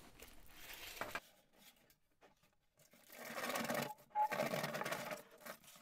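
Flexible aluminium ducting crinkling and scraping as it is handled and pushed into a hole in a cabinet. There is light handling noise at first, then a louder crackly stretch of about two seconds starting about three seconds in.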